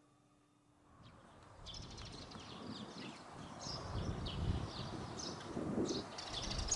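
Outdoor ambience fading in about a second in: birds chirping in short high calls over a low, steady background rumble.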